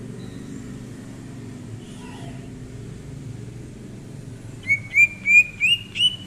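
Cucak ijo (green leafbird) singing: faint scattered chirps, then near the end five loud, quick whistled notes, each a little higher than the last, over a steady low hum.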